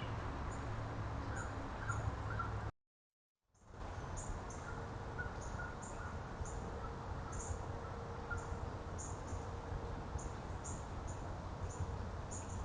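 Small birds giving short, very high chirps again and again at uneven intervals, with a few lower notes, over a low background rumble. The sound drops out completely for under a second about three seconds in.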